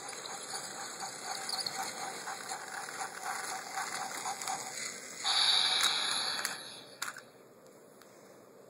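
Battery-powered Trackmaster Talking Thomas toy engine running along its track, the small motor and gears whirring with a rapid, even ticking. About five seconds in comes a louder rush of noise for a second or so, then a click near seven seconds, after which the motor sound stops.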